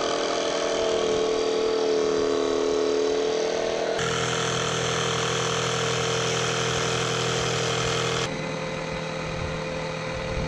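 Makita cordless jigsaw running and cutting through plywood: a steady motor whine that dips in pitch under load and picks back up. Its tone changes abruptly twice, about 4 and 8 seconds in.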